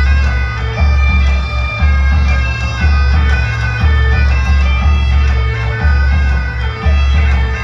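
Bagpipes playing a dance tune with its drone under the melody. A deep drum beats about once a second.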